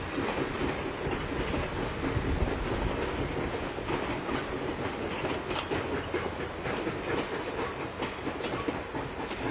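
Train cars of a steam train rolling across a trestle bridge: a steady rumble with many irregular wheel clicks and clacks.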